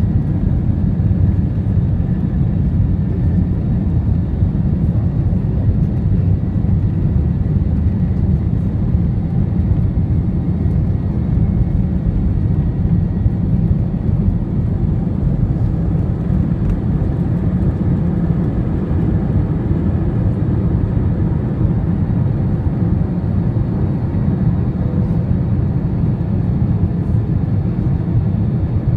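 Airbus A321 jet engines at takeoff thrust, heard from inside the cabin as a loud, steady deep rumble through the takeoff roll and climb-out.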